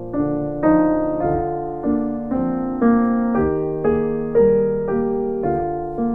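Background piano music: a gentle melody of struck notes and chords, about two a second, each fading after it is struck.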